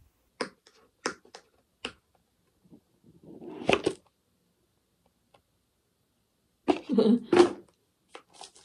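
Scattered light clicks and taps, a short rustle about three and a half seconds in, and a few louder noisy bursts near the end, as a box and its packaging are handled and opened.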